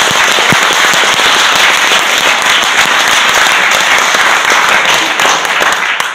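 Audience and panel applauding, loud and sustained, dying away near the end.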